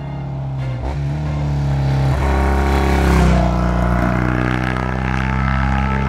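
Classic motorcycle engine running as the bike approaches along the road, getting louder to a peak about three seconds in and then fading, with its pitch dipping briefly twice in the first few seconds.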